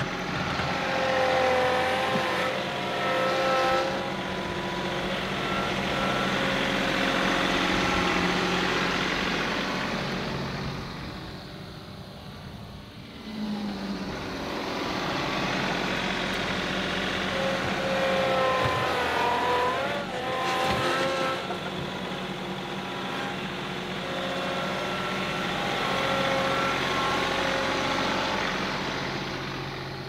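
John Deere 2038R compact tractor's diesel engine running as the tractor moves past with its front loader; the engine sound eases off briefly after about ten seconds and then picks up again.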